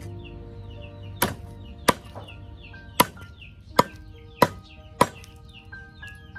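Cleaver chopping pieces off a leg of meat on a thick round wooden chopping block: six sharp chops, irregular, roughly one a second, the last about five seconds in.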